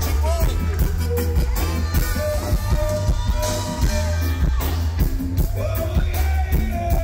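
Live reggae band playing through a loud concert sound system: heavy steady bass, drum kit and guitar, with saxophones holding a melody line over the top.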